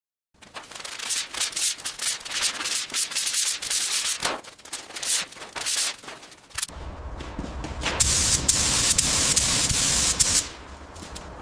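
Sanding: rapid, uneven rubbing strokes. About seven seconds in they change abruptly to a steady hiss over a low rumble for around three and a half seconds, then lighter strokes return near the end.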